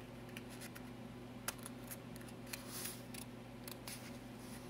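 Faint handling of a paper instruction booklet: a few small paper ticks and rustles as fingers move over and lift the pages, over a low steady hum.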